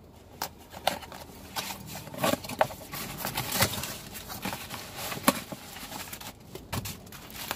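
Irregular scrapes, clicks and rustles of a cardboard parcel being slit open with a motorcycle key, then cardboard and plastic bubble wrap rustling as the wrapped package is pulled out near the end.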